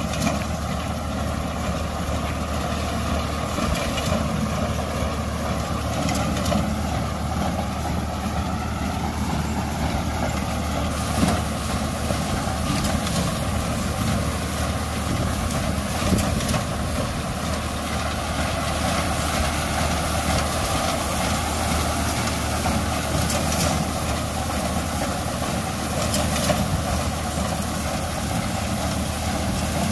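Ford 4560 tractor engine running steadily under load, driving a reaper binder through standing wheat, with the reaper's mechanical clatter and a few sharp clicks.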